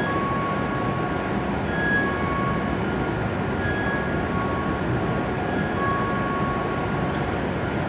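W7 series Shinkansen train drawing to a stop at the platform: a steady running noise with several short, high squeals coming and going.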